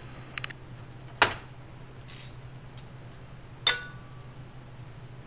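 Two sharp metallic clinks of a hand tool against metal, about two and a half seconds apart; the second rings briefly. A steady low hum runs underneath.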